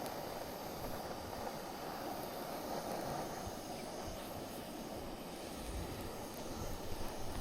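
Steady rushing of a flowing stream, an even wash of water noise with no rhythm.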